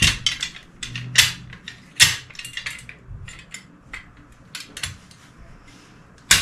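Sharp metallic clicks and clacks of Benelli Vinci shotgun parts being handled and fitted together as the bolt and charging handle are locked into place, with scattered lighter ticks between a few loud clacks, the loudest near the end.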